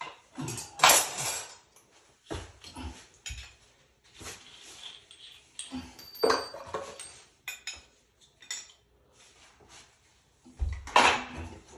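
Irregular knocks, clinks and clatters of tools and plumbing parts being handled on a tiled floor around a plastic bucket. The loudest comes about a second in, with a few more scattered through.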